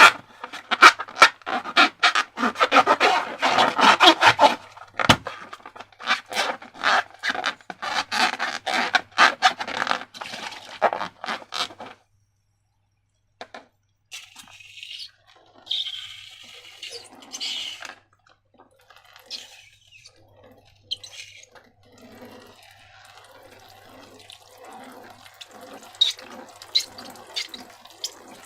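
Wet slime and liquid squelching and dripping: a dense run of sticky, clicky squelches for about the first twelve seconds, a brief silence, then a few short hissing splashes and quieter sticky crackling.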